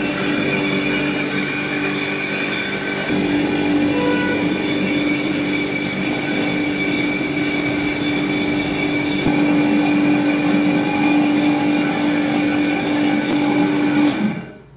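Heavy-duty commercial mixer-grinder running at speed, grinding whole spices into fine masala powder in its stainless steel bowl: a loud, steady motor whine with a steady hum, growing louder about three seconds in and again about nine seconds in, then cutting off near the end.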